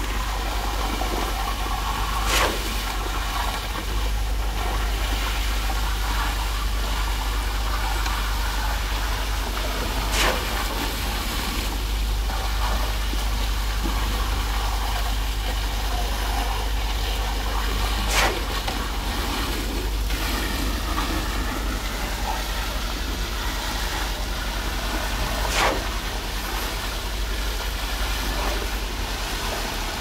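Concrete pump's engine running steadily as it pumps concrete, with four sharp knocks spaced about eight seconds apart.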